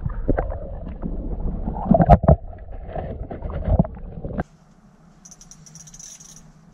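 Wind buffeting a fabric ice shanty: a loud low rumble with scattered knocks and thumps. About four and a half seconds in it cuts off abruptly to a faint steady hum with a brief high whine.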